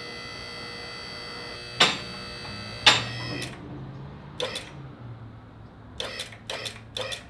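QuickJack 5000TL's electric hydraulic pump running with a steady whine while the lift raises a car. Two loud sharp clicks come about two and three seconds in, the whine stops soon after, and a few lighter clicks follow near the end.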